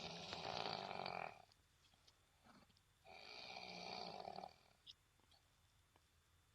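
Snoring: two long snores about three seconds apart, each lasting about a second and a half, with a faint breath between them.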